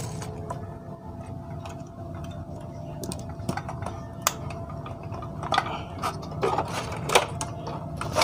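Scattered clicks and taps from handling a CRT TV's power-supply circuit board and its parts while a replacement fuse is fitted, with a few sharper knocks in the second half. A steady hum runs underneath.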